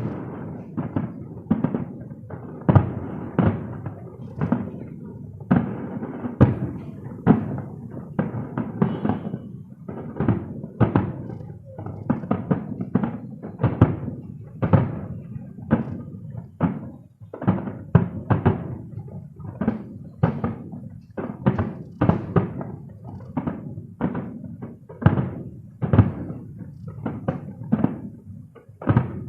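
Fireworks bursting: a dense, irregular series of booms, one to two a second, each trailing off in a short rumble.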